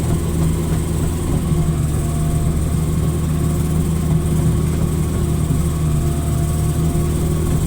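Hitachi excavator's diesel engine running steadily, with a faint higher tone coming and going over it.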